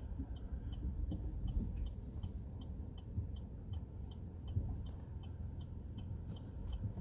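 Chevrolet Trax parking-assist sensor beeping in short, even high pips about three times a second while the car creeps into a parking space, over the low hum of the car inside the cabin.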